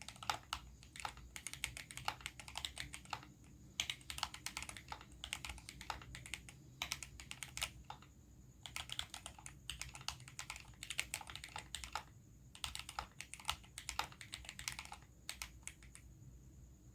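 Typing on a GMMK Pro mechanical keyboard with factory-lubed Amerteer Jade linear switches, aluminium plate and silicone case dampening: fast runs of keystroke clicks with short pauses between bursts, stopping about fifteen seconds in.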